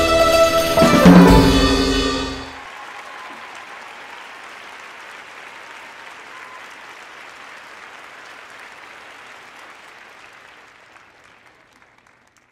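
A live ensemble of violin, classical guitar and electric bass plays its closing bars and stops on a final chord about two seconds in. Audience applause follows, steady and much quieter, and fades out near the end.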